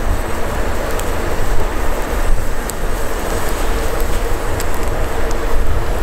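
Small campfire of dry twigs and sticks burning, with scattered sharp crackles and pops, over a loud, steady low rumble.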